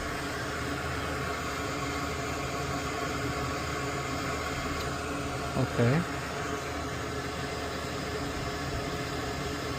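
Steady background hum and hiss of a running machine, with one short spoken word about six seconds in.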